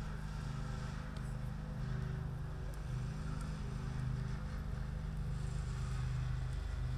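A motor running with a steady low hum whose pitch wavers slightly.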